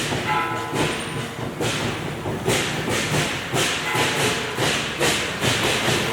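Procession percussion beating a steady rhythm of loud thumps, about two a second, each with a bright crash above it, like a temple troupe's drum and cymbals.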